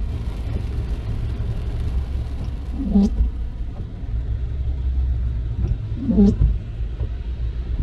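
Car driving in the rain, heard from inside the cabin as a steady low road and tyre rumble. The windshield wipers squeak across the glass twice, about three seconds apart: the blades are stiff and dragging.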